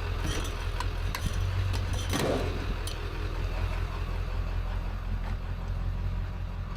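A vehicle engine idling steadily, with a few light metallic clinks in the first second or so.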